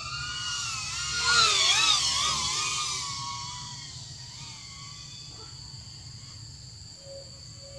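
Micro FPV drone's motors and propellers whining, several pitches rising and falling together with the throttle. The sound is loudest about one and a half to two seconds in, then grows fainter.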